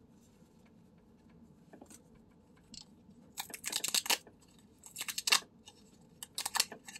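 Paper pull-tab lottery ticket having its tabs torn open: three short rips, starting about three seconds in.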